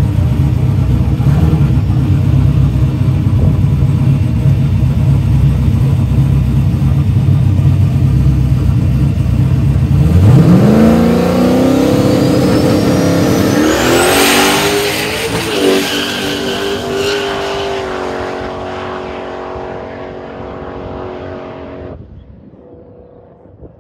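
Ford F100 drag truck's engine rumbling at the start line, then launching at full throttle partway through. The revs climb steeply in a couple of steps, and the engine sound fades as the truck runs off down the drag strip.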